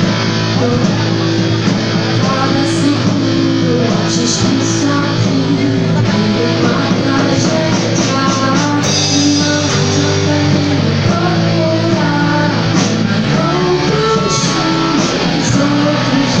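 Amateur rock band playing live: electric guitar and bass guitar over a drum kit, with a cymbal crash about nine seconds in.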